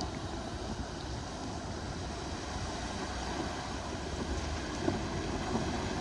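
Steady rushing outdoor noise with wind buffeting the microphone; no clear engine note stands out.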